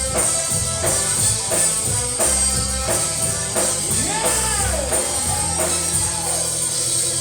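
Live gospel band music with a steady drum beat.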